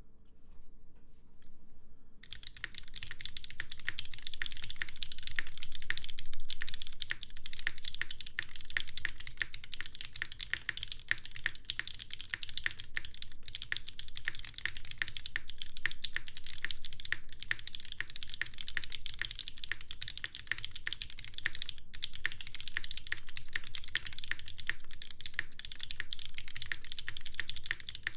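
Typing on a custom Qneko 60% mechanical keyboard: lubed, broken-in Cherry MX Red linear switches in an aluminium plate on a gummy O-ring mount, under GMK doubleshot ABS keycaps, on stacked desk mats. After about two quiet seconds the keystrokes start and run fast and continuously, with one short pause a little past the two-thirds mark.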